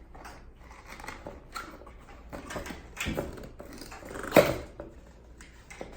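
Cardboard packaging being opened and handled: a run of irregular rustles and scrapes, with one louder sharp sound about four and a half seconds in.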